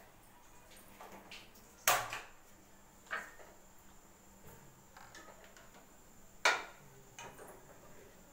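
A handful of sharp clicks and knocks, the loudest about two seconds in and again about six and a half seconds in, from a gas stove burner being lit and utensils being handled at a non-stick kadhai.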